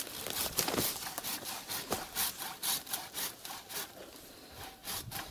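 Hand saw cutting through a wooden branch, with steady back-and-forth strokes about two a second.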